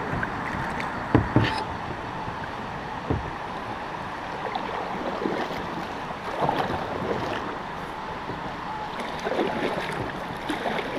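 Kayak paddles dipping and splashing in the river with each stroke over a steady rush of water and wind noise, with a few sharp knocks about one and three seconds in.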